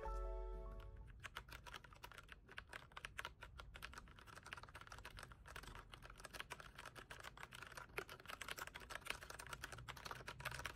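Fast typing on an RK Royal Kludge RK68 mechanical keyboard with brown switches: a dense, irregular run of light key clacks. Brown switches are less noisy than blue ones.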